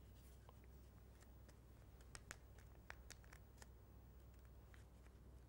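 Near silence with faint scattered clicks and rustles: paper rings being handled while a glue stick is rubbed on them.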